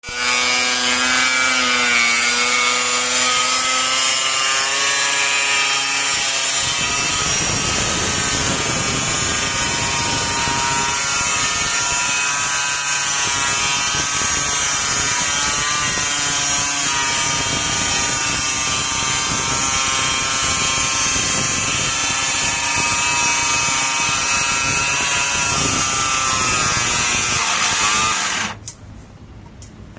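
A power tool running continuously with a wavering pitched whine over a harsh noise, cutting off abruptly near the end.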